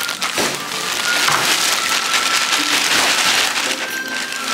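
Thin plastic bag crinkling and rustling as it is handled and emptied, a dense, steady crackle.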